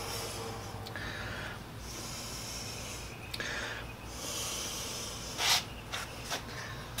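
A man breathing audibly, hissy breaths coming and going every second or two, over a steady low hum, with a short sharp snort about five and a half seconds in.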